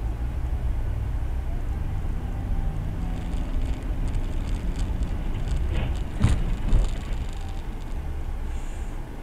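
Steady low rumble of a moving car heard from inside the cabin, picked up by a dashcam, with a couple of sharp thumps about six seconds in.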